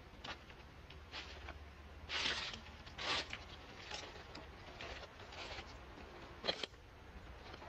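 A series of short rustling noises, roughly one a second, the loudest about two seconds in and a sharper one near the end.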